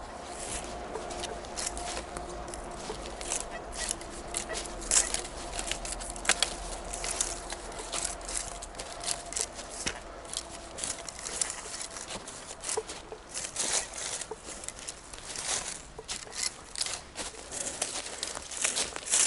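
Dry leaf litter and twigs on a forest floor crackling and rustling: a dense run of irregular crackles, close to the microphone.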